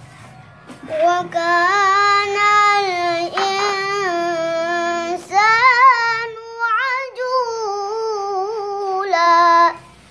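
A young boy's high voice chanting Quran recitation in a melodic style (tilawah), with long, held notes that waver and bend in pitch. It starts about a second in, with two brief breaks for breath.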